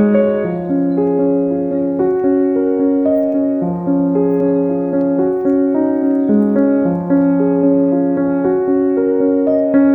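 Background music: slow, gentle piano playing sustained chords over low bass notes.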